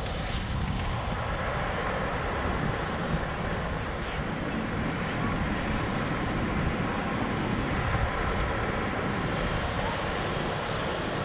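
Steady wind buffeting the microphone with a low rumble, over the wash of ocean surf breaking on the beach.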